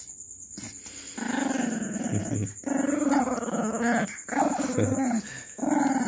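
Small pinscher growling in play while it mouths a ball and wrestles with a hand. Quiet at first, then from about a second in a run of low growls, each about a second long, with short breaks between them.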